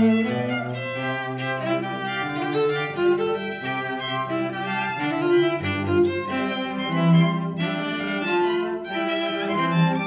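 Background music on bowed strings, a violin-like melody over a lower cello-like line, playing held notes that change every second or so.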